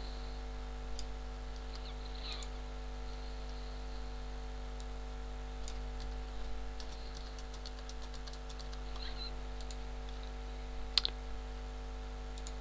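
Computer keyboard typing and mouse clicks: scattered taps, a quick run of keystrokes in the middle and one sharper click near the end, over a steady electrical hum.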